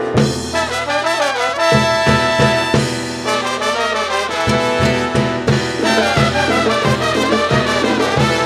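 Live salsa band playing an instrumental brass passage, trumpets carrying the melody over a steady bass and percussion pulse.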